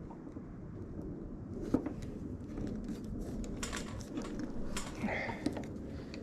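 Light clicks and taps from small parts being handled, spaced a second or so apart, over a low steady background noise.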